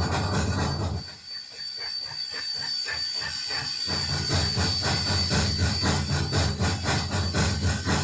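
A sound-equipped model railroad locomotive running, giving a rhythmic beat of about four strokes a second with a steady high whine. The low rumble drops away about a second in, comes back about four seconds in, and the beat then quickens.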